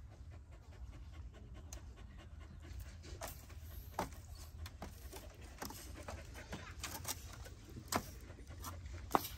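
Siberian husky panting, with a few sharp knocks about four, eight and nine seconds in, the last the loudest.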